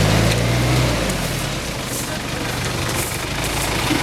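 Off-road SUV's engine pulling under load as the vehicle crawls through deep mud, strongest in the first second or so and then easing, over a steady hiss of tyres working the mud.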